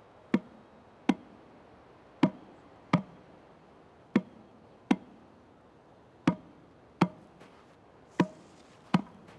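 Sharp percussive knocks in a steady two-beat pattern: five pairs about two seconds apart, with the second knock of each pair coming a little under a second after the first.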